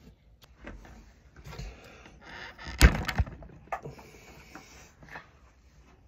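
A genuine Wago 221 lever connector pulls off its 1.5 mm cable under a hard tug and hits the wooden bench with one sharp knock about halfway through, followed by a couple of lighter clicks. The connector's grip on the conductor has given way. Faint rustling of the strained cable comes before the knock.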